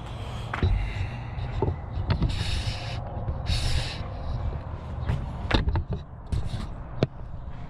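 Metal tools and bicycle parts clicking and knocking during a bike teardown, a handful of separate sharp knocks. Two short hissing bursts come a little after two seconds and again about a second later.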